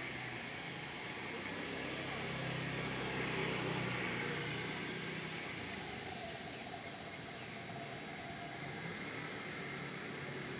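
Outdoor road traffic running steadily, with one vehicle passing that swells for a few seconds around three to four seconds in and then fades.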